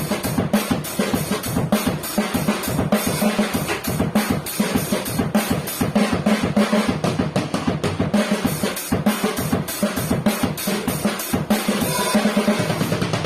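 Tajon Master FSA Plus compact drum kit (14-inch bass drum, 10-inch snare, 8- and 10-inch toms fitted with porous FSA heads) being played, a dense run of kick, snare and tom strokes, several a second, picked up by a phone's microphone.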